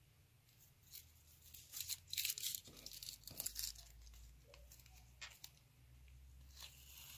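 Washi tape being peeled off watercolour paper in a run of short, crackly pulls, mostly in the first half, then fainter rustling as the peeled strips are handled.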